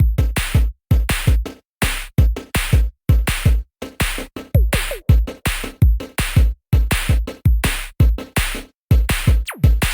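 Electronic dance music with a heavy drum-machine beat: deep kick drums and ticking hi-hats, with short drops to silence between phrases.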